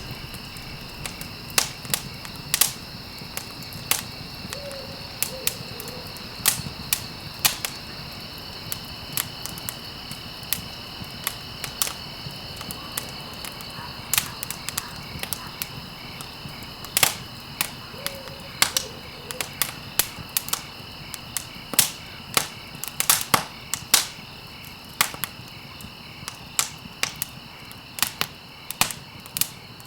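Wood campfire crackling: irregular sharp pops and snaps, sometimes several in quick succession, over a steady high-pitched drone.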